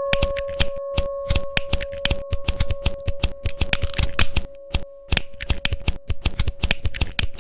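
Rapid, irregular clicking, several sharp clicks a second, over a steady tone that fades out near the end.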